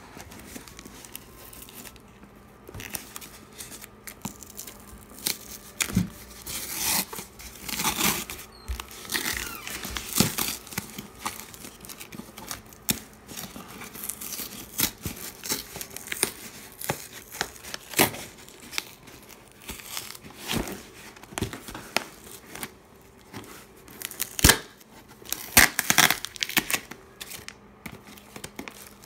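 Packing tape being picked at and peeled off a cardboard shipping box by hand: irregular ripping and crinkling of the tape, with the loudest rips a few seconds before the end.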